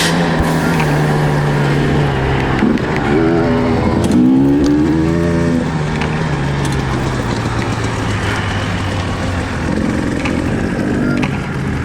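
Husqvarna TE 300 two-stroke dirt bike engine under riding, the revs rising and falling several times between steadier stretches.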